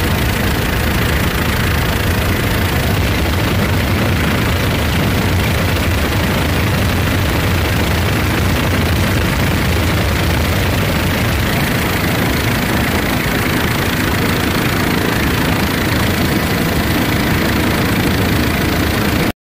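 Steady, loud helicopter engine and rotor noise, with no change in pitch or beat, cutting off abruptly near the end.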